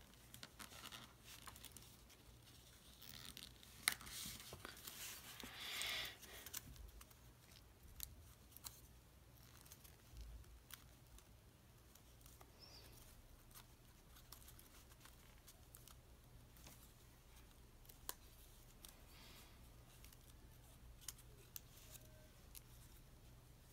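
Faint rustling and crinkling of origami paper being folded and pinched by fingers, with scattered small clicks, over a low steady hum. The rustle is loudest from about three to seven seconds in.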